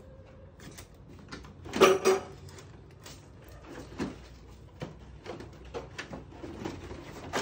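Handling noises from a plastic-wrapped split AC indoor unit being shifted about on cardboard: rustling plastic film and scattered knocks and clicks of its plastic casing, with a louder clatter about two seconds in.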